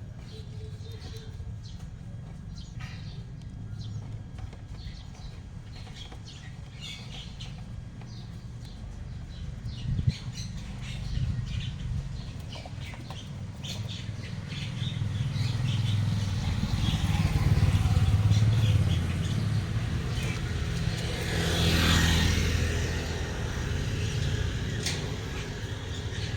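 A motor vehicle drives past: a low engine rumble swells, peaks about 22 seconds in, then fades. Faint chirps and clicks, like small birds, sound scattered throughout.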